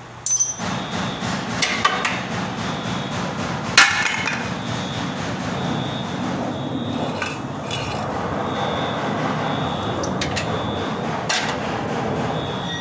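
Metal clanks and knocks, as from tools striking metal parts, scattered through a steady background noise; the loudest strike comes about 4 seconds in.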